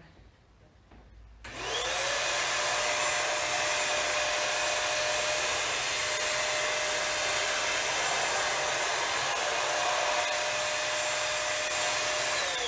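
Bissell Hercules Slim Vac commercial stick vacuum switched on in maximum power mode: about a second and a half in, its motor spins up to a steady high whine with rushing air as the carpet nozzle sucks up a heap of rice, flour and salt. Near the end it is switched off and the whine starts falling away.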